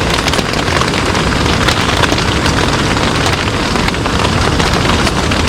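Loud steady rushing noise with many small crackles and ticks throughout.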